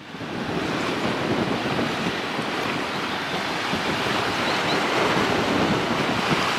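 Strong wind buffeting the camcorder's microphone: a steady rushing noise with an uneven, gusty low rumble, fading in at the very start.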